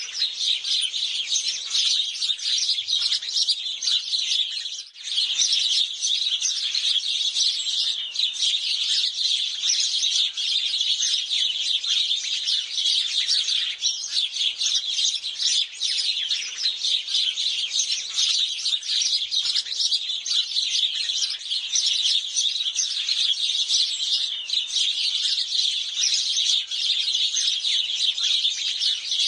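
A flock of house sparrows chirping continuously, many short calls overlapping at once, with a brief lull about five seconds in.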